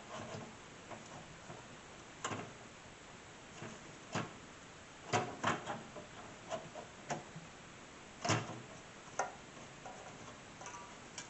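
Irregular clicks and knocks of parts being handled and fitted inside a desktop PC case.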